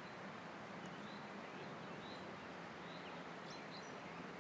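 Faint outdoor ambience over wooded countryside: a steady soft hiss with a few short, high bird chirps scattered through it.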